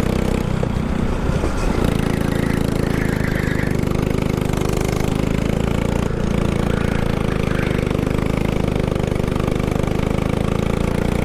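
Go-kart engine running steadily at speed during a race lap, heard from on board, its note briefly unsettled about a second in.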